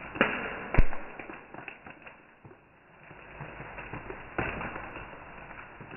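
Plastic Oreo biscuit packet crinkling and crackling as it is gripped and handled, an uneven patter of small crackles, with one sharp knock about a second in.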